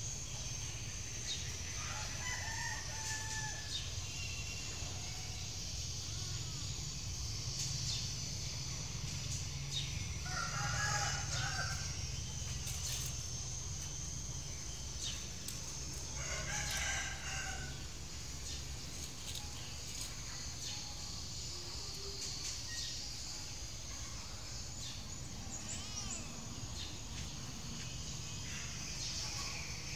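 A rooster crowing a few times, the longest calls about ten and sixteen seconds in, over a steady high insect drone and a low background rumble.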